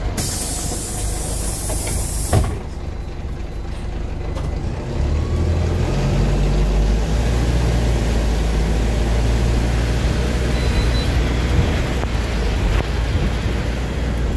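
PAZ 320414 city bus: a loud pneumatic air hiss for about two seconds, ending in a knock. About five seconds in, the engine takes up load and runs steadily as the bus pulls away.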